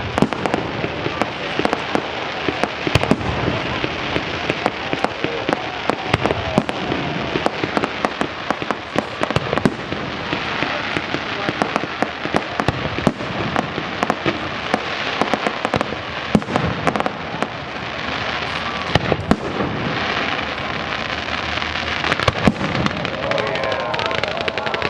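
Fireworks display: a dense, continuous run of pops, bangs and crackling that keeps going without a break.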